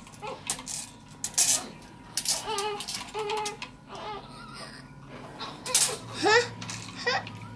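A small child's high voice making short wordless cries and squeals, mixed with scattered clicks and clatter from handled toys.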